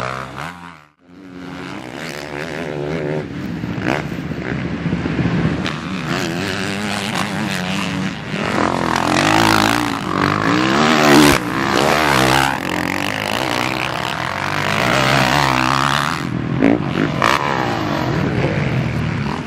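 Kawasaki motocross bike engines revving hard, their pitch climbing and falling again and again as the bikes accelerate, shift and pass. The sound drops out briefly about a second in.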